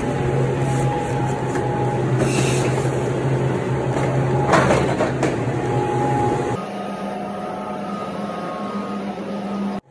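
Steady machine hum of an electric pallet jack moving through a walk-in cooler with its fans running, with a brief louder rattle about four and a half seconds in. At about six and a half seconds the hum changes abruptly to a quieter, different steady hum.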